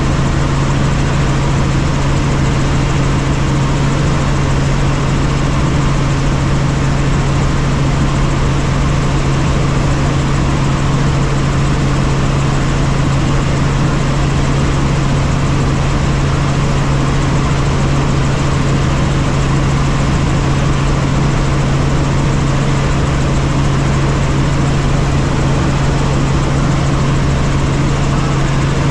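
Light helicopter in flight, heard from inside the cabin: a steady drone of engine and rotors, with a strong low hum over an even rushing noise.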